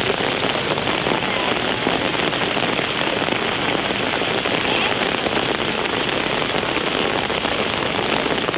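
Torrential rain from a sudden summer downpour, falling steadily as a dense, even rush of noise.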